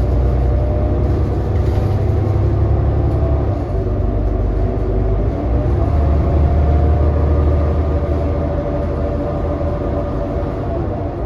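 Cabin sound of a 2018 New Flyer XD40 diesel transit bus under way: a loud engine and drivetrain drone with several steady whining tones over a low rumble. The rumble dips about four seconds in and swells again a couple of seconds later as the bus changes speed.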